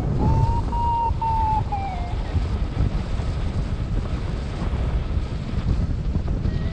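Wind buffeting the microphone of a paraglider in flight: a loud, steady low rumble. In the first two seconds a flight variometer beeps in a run of short, high tones that drop in pitch and then stop, as the climb fades.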